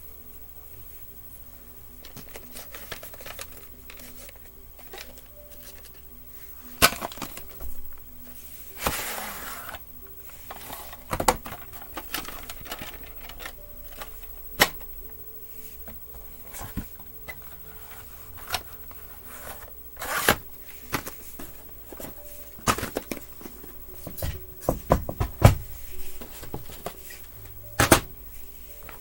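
Plastic VHS and DVD cases being handled and set down on a wooden floor: scattered clicks and knocks, with a longer rubbing rustle about nine seconds in. A faint steady hum runs underneath.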